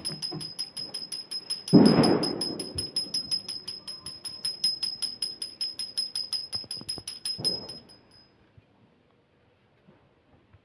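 Brass puja hand bell (ghanti) rung fast and steadily, a high ring at about six strokes a second, stopping after about eight seconds. A louder dull thump sounds about two seconds in.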